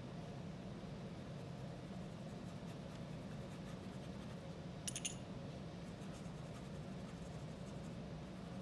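Faint scratching of a paintbrush working watercolor into fabric, over a steady low room hum. A brief cluster of sharp clicks comes about five seconds in.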